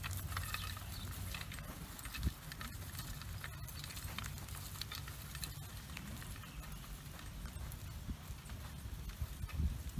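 Hoofbeats of a miniature horse and a man's footsteps crunching on raked gravel, with the scrape of a wooden singletree dragged behind the horse, over a low steady rumble. There is one louder thump about two seconds in.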